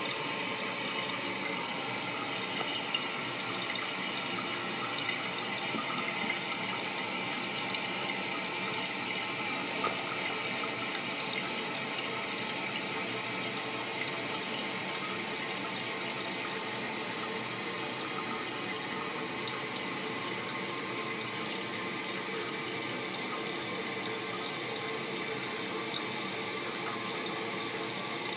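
Toilet tank refilling through a newly installed fill valve: a steady hiss of water rushing through the valve, with the refill hose spraying into the overflow tube.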